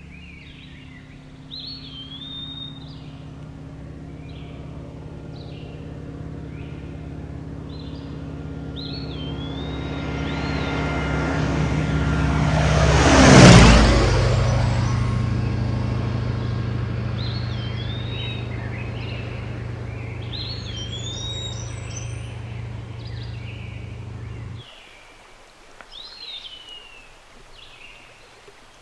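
A small propeller plane flies low overhead. Its engine drone builds to a loud peak about halfway through, drops in pitch as it passes, then fades and stops suddenly near the end. Songbirds whistle repeated rising-and-falling phrases throughout.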